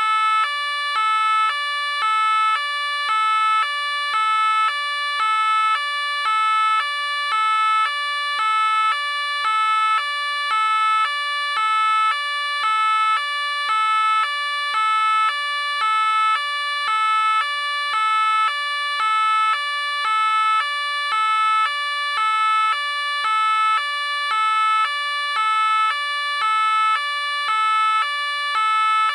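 French police car two-tone siren alternating steadily between a high and a low note, each held a little over half a second.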